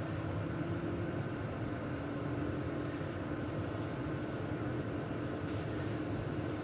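Steady road and tyre noise of a Volkswagen ID.7 electric car on the move, with a faint hum underneath that drifts slightly in pitch.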